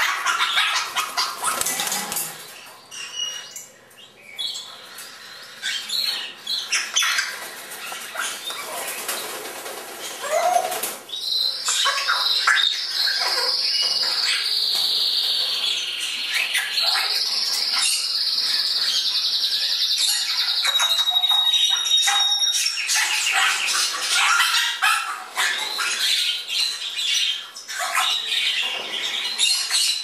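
Fledgling African grey parrots flying, with repeated short wing flaps. For about ten seconds in the middle, a sustained high-pitched sound runs underneath; it dips in pitch and rises again, then stops.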